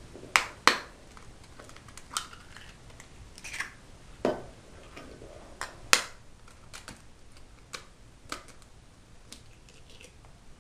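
Eggs being cracked open with a kitchen knife: sharp taps of the blade against the shells and the crack of shell breaking, a scattered string of clicks with the loudest near the start and about six seconds in.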